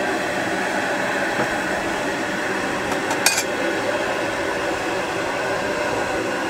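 Steady hissing noise of the stove heating a large aluminium kadhai of milky masala water toward a boil for upma, with one short metallic clink about three seconds in.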